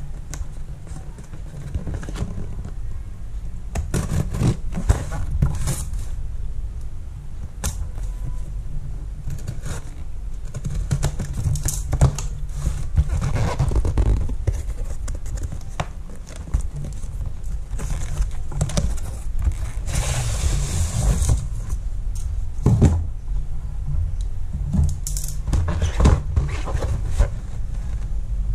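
Cardboard shipping box opened with scissors and by hand: the packing tape is cut and torn, and the cardboard flaps and the shoebox inside rustle, scrape and knock in a string of short sounds. A longer hissing scrape comes about twenty seconds in. A steady low rumble runs underneath.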